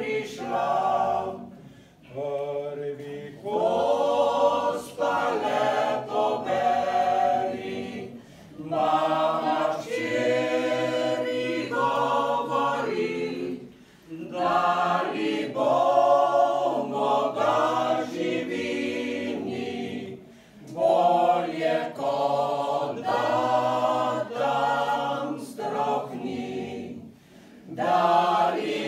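A choir singing unaccompanied in slow, long phrases with short breaks between them.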